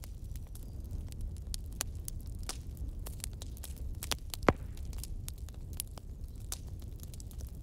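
Bonfire crackling, with a steady low rumble and irregular snaps and pops, one much louder pop about four and a half seconds in.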